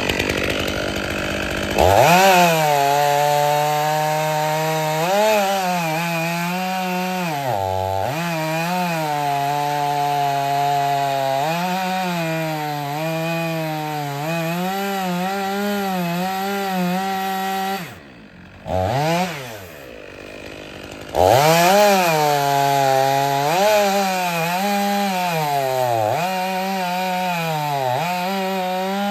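Stihl 500i chainsaw cutting firewood at full throttle, its pitch dipping and recovering repeatedly as the chain loads up in the wood. Just past halfway it drops back to idle for about three seconds, with one short blip of the throttle, then revs up again.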